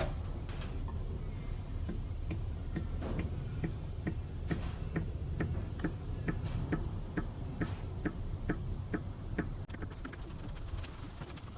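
20W50 motor oil glugging as it is poured from a jug into the engine's oil filler, a regular train of short pops about two a second as air bubbles back into the container.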